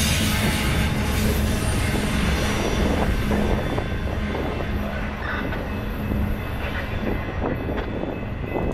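The tail end of a double-stack intermodal freight train rolling past on the rails and moving away, with the steel wheels rumbling and hissing on the track. The noise thins out about halfway through, leaving scattered clicks from the wheels as the last cars recede.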